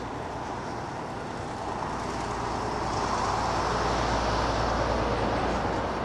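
Road traffic: a vehicle passing, its rumbling noise swelling from about two seconds in and easing near the end.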